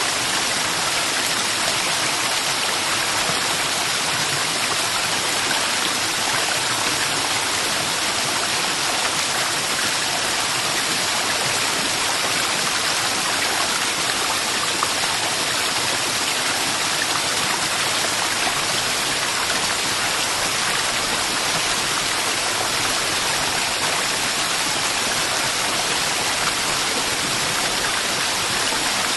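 Waterfall, water falling and splashing in a steady, even rush with no change throughout.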